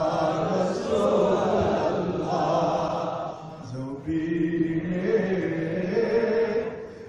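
Men's voices chanting together in a devotional chant, drawn-out and wavering in pitch. The chant dips briefly about four seconds in, then goes on with longer held notes.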